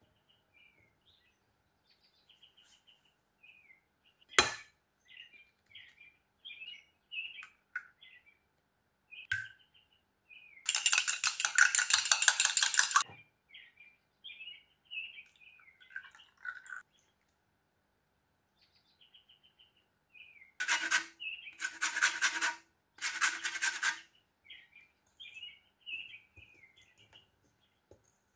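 Rapid scraping of a utensil mixing crumbly pastry dough in a glass bowl. There is one long burst about eleven seconds in and three shorter ones a little after twenty seconds, with a single sharp knock around four seconds. Small birds chirp throughout in the background.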